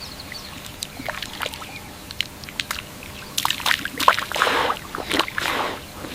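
Water sloshing and splashing, with scattered sharp clicks, the splashing swelling louder from about halfway.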